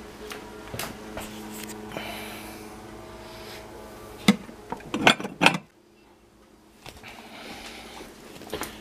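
Glass jars clinking and knocking against each other as one is taken out of a cupboard: one knock about four seconds in, then a quick cluster of clinks about a second later.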